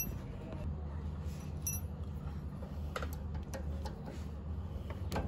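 A few light metallic clicks and taps from a piercing valve and its bolts being handled and tightened on a copper refrigerant line, over a low steady hum.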